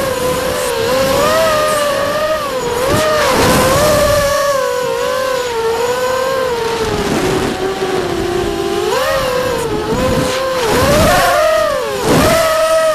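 Vortex FPV racing quadcopter's electric motors and propellers whining, the pitch swooping up and down with throttle as it flies. A few brief gusts of rushing noise come through, the loudest near the end.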